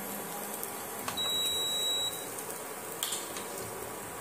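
An electronic beep: one steady high-pitched tone lasting about a second, over the low hiss of dhoka pieces frying in oil, with a spatula clicking against the pan about a second in and again near the end.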